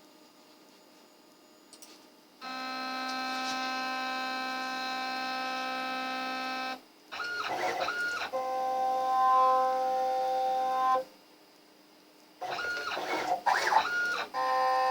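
CNC router stepper motors whining as the machine moves the probe during an automatic centre-finding cycle. The pitch glides up and down as the axes speed up and slow down, and holds steady tones during the longer moves, with short pauses where the machine stops.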